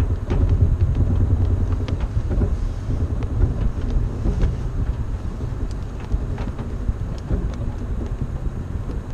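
Toyota Tacoma crawling over rough ground at low speed under crawl control: a steady low engine and drivetrain rumble, with scattered knocks and clicks as the truck bounces, heard from inside the cab.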